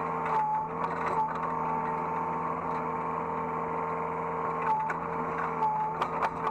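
Hydraulic excavator running, heard from the operator's seat: a steady engine and hydraulic whine whose pitch dips briefly four times, with sharp clunks now and then.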